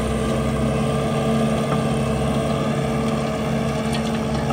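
Skid-steer loader engine running steadily, with a constant pitch, as it powers a hydraulic ground-grinding attachment.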